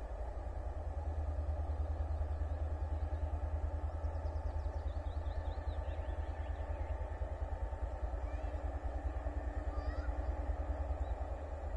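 M62M diesel locomotive approaching with a train of tank wagons: its engine makes a deep, rapidly pulsing rumble that grows a little louder. Birds chirp faintly partway through.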